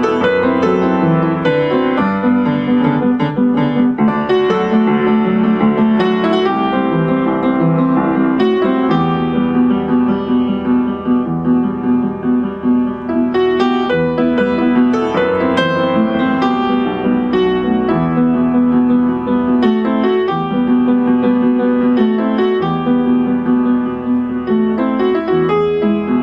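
Piano music playing steadily, a flowing piece of many notes.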